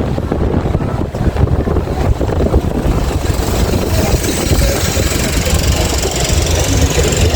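A motor-vehicle engine running with a rough, rapid knocking rumble. A hiss higher up grows from about halfway through.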